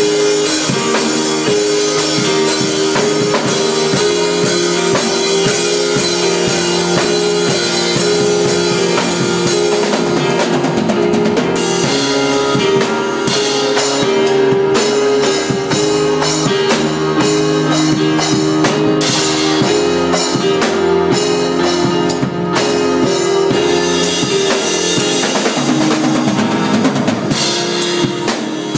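A drum kit played live at a busy pace, with steady cymbal and snare hits over the bass drum, alongside another instrument holding sustained pitched notes.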